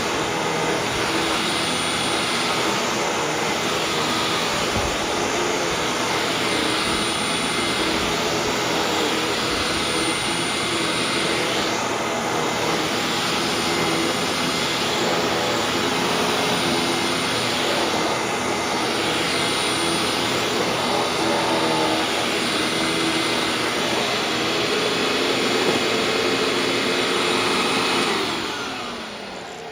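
Hoover WindTunnel WidePath upright vacuum cleaner running steadily on sandy carpet, with a thin high whine over its motor noise. Near the end it is switched off and winds down.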